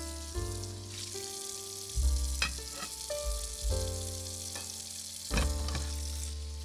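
Background music with a melody of held notes over deep bass notes that change every second or so. Beneath it there is a steady high hiss and a few light clicks.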